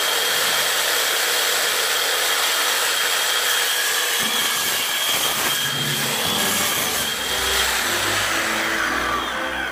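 Table-mounted circular saw running at full speed with a steady high whine, then winding down near the end, its pitch falling. Background music comes in about halfway through.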